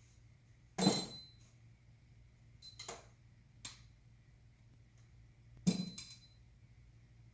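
Metal hand tools clanking on a workbench: two sharp clanks with a brief ring, about a second in and again near the end, and two lighter clicks in between.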